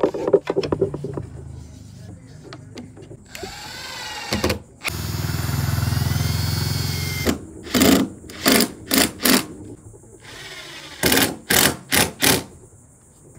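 Cordless drill worked into a wooden plank: a brief run, then a steady run of about two seconds, then short trigger bursts in two groups of four. Crickets chirp steadily in the quieter gaps.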